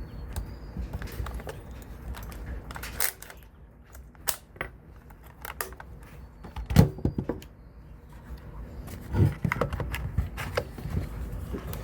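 Airsoft rifle parts being handled during reassembly: scattered small clicks and knocks. A heavier knock of a few quick strokes comes about seven seconds in, and another about nine seconds in.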